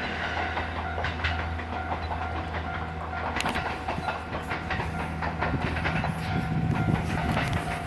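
A train running past over the level crossing, its wheels clicking over the rail joints on a low rumble, while the crossing's warning bell keeps ringing.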